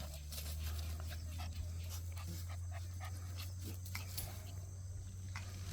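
Young Jindo dogs panting, with many small clicks and scuffs of movement, over a steady low hum.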